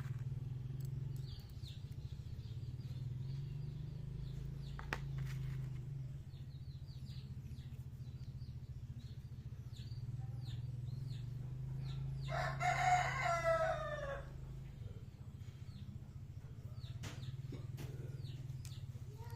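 A rooster crows once, a call of about two seconds falling in pitch, over a steady low hum, with scattered faint clicks and small high chirps.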